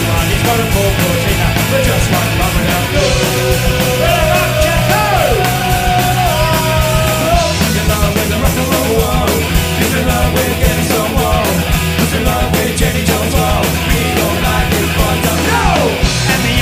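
Live punk rock band playing loud, with a held, sliding note from a few seconds in to about the middle.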